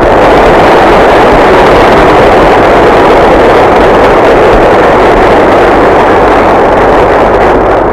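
Audience applause: a crowd clapping loudly and steadily after a few scattered first claps, tapering off near the end.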